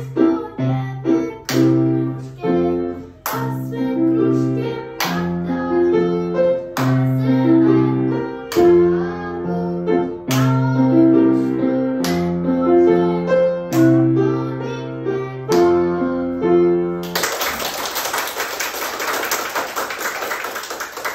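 A child singing a song to grand piano accompaniment. About seventeen seconds in, the music stops and a small group starts clapping.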